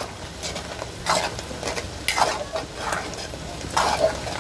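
A metal utensil stirring spaghetti in a pan of bubbling water, with repeated wet swishing strokes roughly one a second over a steady bubbling hiss.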